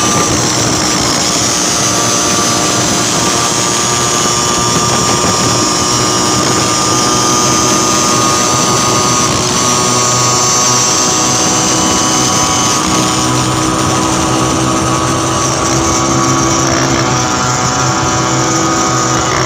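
Small engines of racing auto rickshaws and motorcycles running at speed, holding a steady multi-tone engine note over a rushing road noise.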